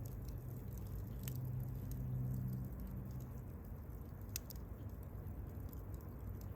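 Wood campfire crackling, with scattered sharp pops and small ticks over a low rumble from the fire. A low hum swells and fades over the first three seconds.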